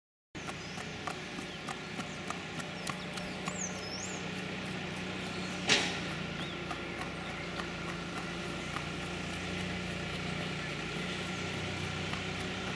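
Hoofbeats of a Mangalarga Marchador mare in the marcha batida gait on concrete: an even clip-clop of about two to three beats a second, clearest in the first few seconds, over a steady low hum. A single loud thump about six seconds in.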